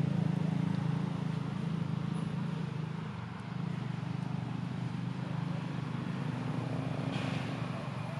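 A steady low motor hum, with a short burst of noise about seven seconds in.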